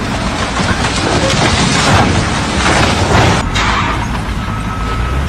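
Heavy rumbling crash of a concrete mixer truck going over the edge of a track. About three and a half seconds in it breaks off, and workshop noise with a steady thin whine follows.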